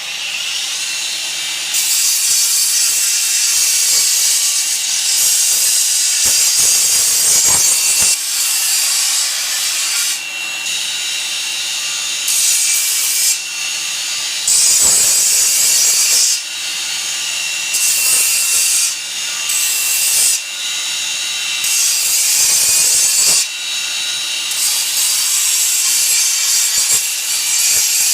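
Homemade 2x72 belt grinder running, with loud hissing grinding passes of a second to a few seconds each, repeated about eight times, as the plasma-cut steel plate is pressed to the belt to grind off the dross. Under the passes the grinder's motor and belt run with a steady hum and whine.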